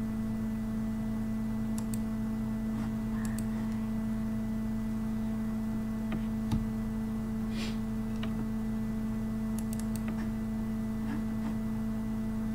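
Steady low electrical hum with a few faint, scattered computer mouse clicks and one slightly louder knock about six and a half seconds in.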